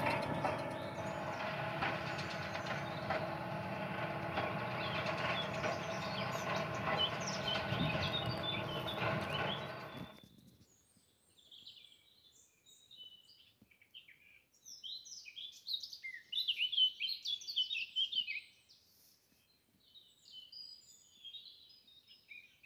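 A loud, dense sound with many steady held tones, cut off abruptly about ten seconds in; after it, birds chirping and singing.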